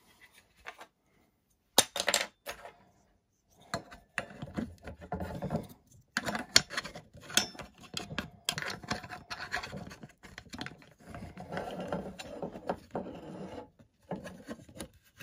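Hard plastic wheel fairing scraping, rubbing and clicking against a metal landing-gear leg as it is worked into place by hand. There are a few sharp clicks about two seconds in, then nearly constant scratching and clicks.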